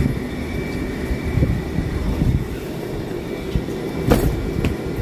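Steady low rumble, with a short rustle and a sharp click about four seconds in as a soft fabric suitcase is handled.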